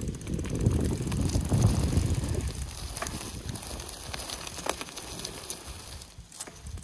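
Mountain bike riding on Maxxis DTH tyres: wind rumble on the microphone and tyre rolling noise, which die down after about two and a half seconds to scattered light clicks and crackles.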